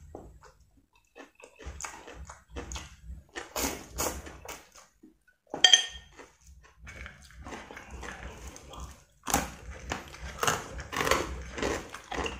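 Close-up wet chewing and slurping of a mouthful of instant noodles in soup, in irregular short bursts, with a sharp clink of chopsticks against the ceramic bowl about six seconds in.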